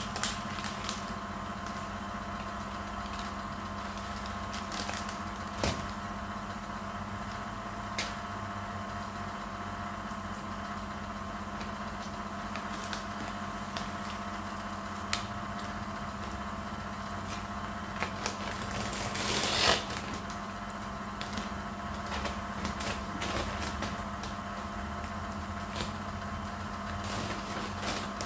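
Masking tape being peeled off freshly painted bodywork, with faint crackles now and then and one louder rip about twenty seconds in, over a steady hum.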